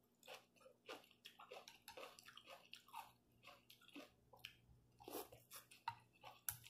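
Close-up mouth sounds of eating noodle soup: soft, irregular chewing and wet smacking, with a longer slurp of noodles near the end.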